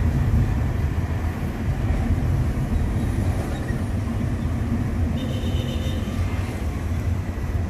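In-cabin driving noise of a Hyundai i20 automatic: a steady low rumble of engine and tyres on the road as the car slows.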